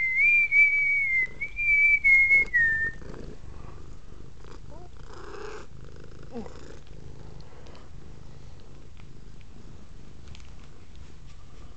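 A person whistles a wavering high note for about three seconds, sliding down at the end. Then the domestic cat's steady, low purr carries on while she is stroked.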